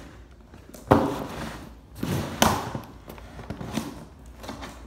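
Cardboard shipping box being handled and pried open: two sharp knocks, about a second in and about two and a half seconds in, with scraping and rustling of the cardboard between.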